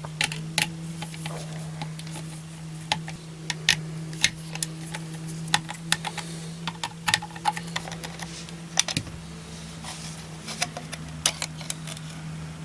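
Irregular light clicks and taps of a screwdriver and the plastic bilge pump housing being handled as the pump is taken apart, over a steady low hum.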